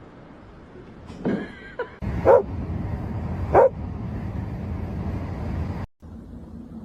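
A dog gives a short whine, then barks twice, a little over a second apart, over a steady low background rumble.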